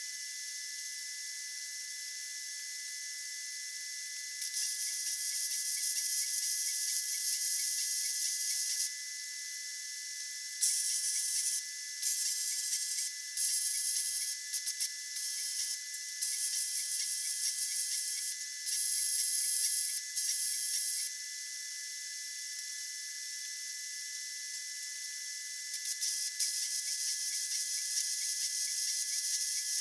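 Hobart Handler 190 MIG welder arc crackling and sizzling on steel in several separate weld runs. A long bead starts about four seconds in, a string of short stop-start tacks follows, and another bead runs near the end.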